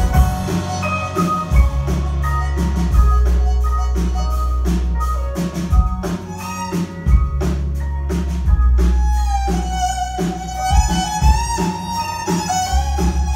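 Live band playing an instrumental passage: a steady drum-kit beat with bass and keyboard, and a fiddle melody that takes the lead about two-thirds of the way through.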